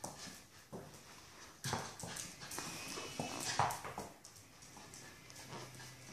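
Lakeland terrier's claws clicking and scrabbling on a hardwood floor as it moves about with a stocking in its mouth. There are scattered knocks and swishes from the stocking, a few of them louder.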